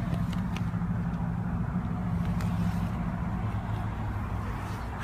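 Idling car engine: a steady low hum, with a few light clicks from handling.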